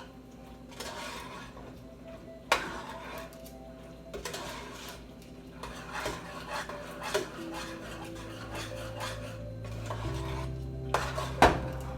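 A spoon scraping and clinking in a pot as macaroni and cheese is stirred, with two sharp knocks against the pot, one about two and a half seconds in and one near the end.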